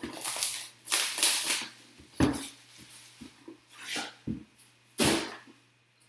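Cardboard boxes sliding and scraping against each other as a 2019 National Treasures Football hobby box is pulled out of the case and set down. Several short swishes, with a dull thump about two seconds in.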